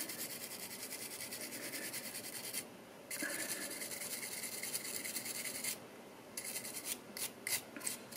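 Brass wire brush scrubbing the bare die-cast zinc metal body of a toy car in rapid back-and-forth strokes, scouring off oxidation. It pauses twice and ends in a few short, separate strokes.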